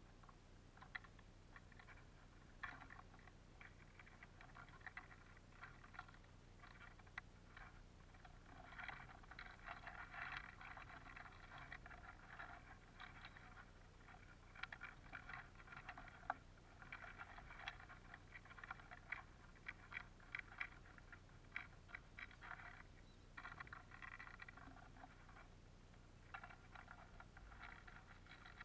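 Eurasian siskins feeding on a tray of sunflower seeds make a faint, dense run of small clicks and taps. The clicking thickens about eight seconds in and then comes in clusters.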